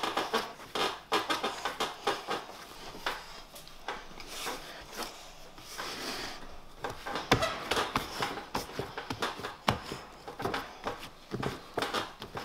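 Hands kneading a rich yeast dough for paska in a bowl: irregular soft slaps and rubbing, with a couple of sharper knocks in the second half.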